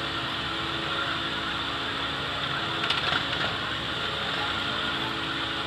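Several motorcycle engines idling together, a steady mixed drone, with a short clatter about three seconds in.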